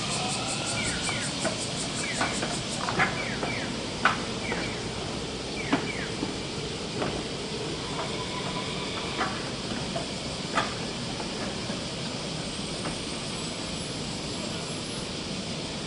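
Steady street noise along a tram line, with scattered short, high falling chirps and sharp clicks; a fast, faint, high ticking stops about three seconds in.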